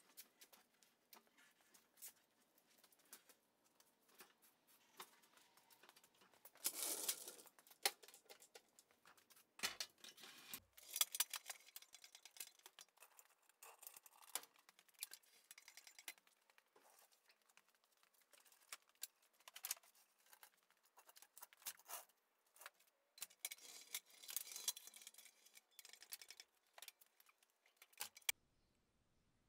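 Faint clicks, clanks and rattles of a hand pallet jack being worked under a compressor tank, with a few louder rattling stretches; the sound cuts off suddenly near the end.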